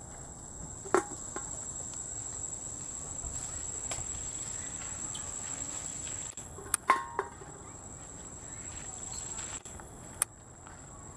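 Insects singing in a steady, high-pitched drone, with a few sharp clicks about a second in, around seven seconds in and just after ten seconds.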